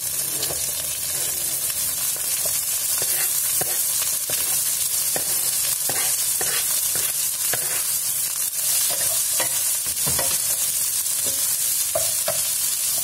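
Sliced green chillies frying with garlic and shallots in hot oil in a wok: a steady sizzle, with a wooden spatula scraping and knocking against the pan many times as they are stir-fried.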